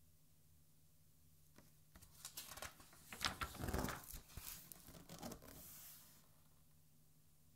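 A page of a large art album being turned by hand: the paper rustles and crackles for about four seconds, loudest midway, then slides flat with a short hiss.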